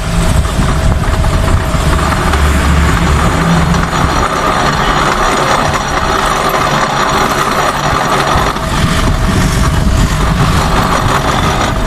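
Metal lathe running steadily, spinning a bicycle hub in its chuck while a thread is cut on the hub, with a constant hum and whine.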